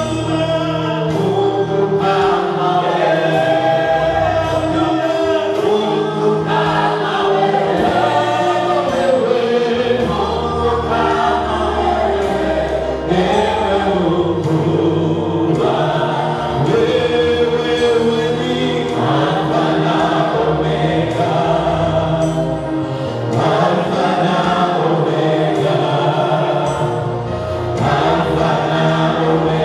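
Gospel worship music: a man leads the singing into a microphone, with choir voices and band accompaniment keeping a steady beat.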